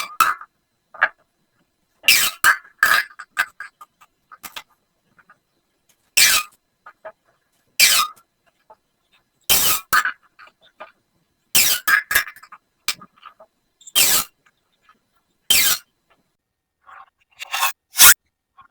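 Corrugated plastic pop tubes being stretched and squashed, each pull giving a short burst of crackling clicks. The bursts come about every one and a half to two seconds, some in quick pairs.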